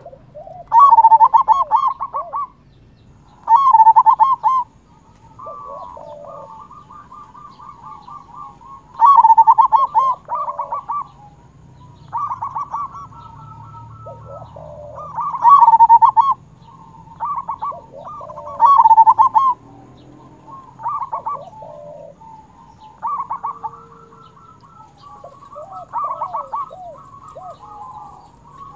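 Zebra dove (perkutut) singing its cooing song. Repeated loud phrases of rapid, stuttering coos, each one to two seconds long and several seconds apart, with fainter cooing between them.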